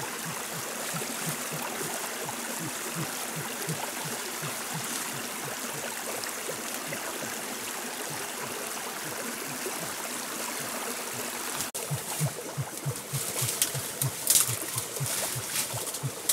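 Small forest stream flowing steadily. About twelve seconds in, the sound changes to leaves and dry brush rustling and crackling as someone pushes through undergrowth.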